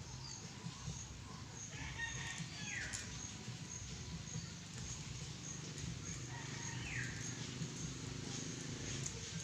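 Chickens giving a few short, falling calls over a low steady hum.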